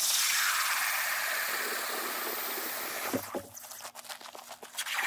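Cordless drill spinning an ice auger down through lake ice: a loud, steady grinding of the blades chewing ice. About three seconds in it stops with a low thump as the auger is lifted out, and scattered crunching follows.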